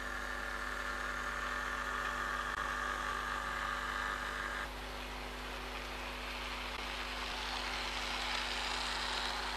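OO-gauge model InterCity 125 (HST) train running on the layout: a small electric motor's whine and the wheels running along the track. The steady whine cuts off abruptly about halfway through, and a hissing running noise builds up after it.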